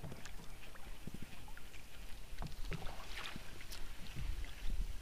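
Faint, irregular clicks and a few soft knocks from an angler's tackle and a small boat's hull during casting and lure retrieve, over a steady low hiss.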